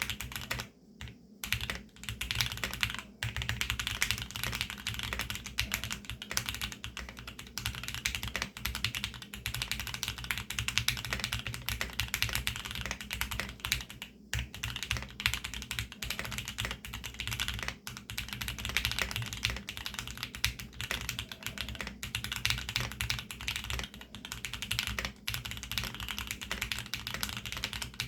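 Steady fast typing on a custom full-aluminium Geonworks F1-8X mechanical keyboard with a polycarbonate bottom, fitted with lubed Tealios V2 linear switches with Cherry black top housings and Monstargear TUNA PBT double-shot keycaps. Keystrokes clatter continuously, with brief pauses about a second in and near the middle.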